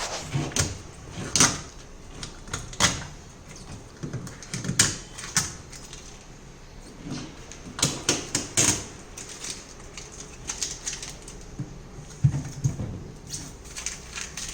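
Irregular sharp clicks and knocks of refrigerator shelves, drawers and trays being handled and moved, with a couple of duller knocks near the end.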